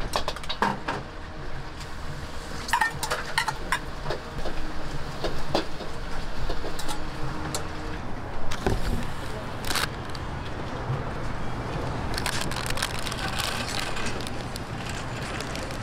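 Scattered knocks and clatter of metal cooking utensils over a steady low hum, with voices in the background.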